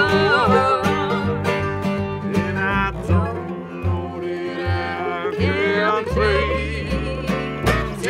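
Acoustic bluegrass band playing a slow song: a woman singing over mandolin, acoustic guitar and plucked upright bass. The voice drops out for a few seconds in the middle and comes back near the end.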